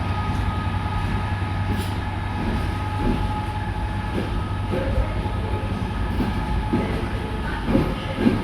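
A train running with a steady low hum and several steady higher tones. From about three seconds in, a series of irregular knocks joins it, the loudest near the end.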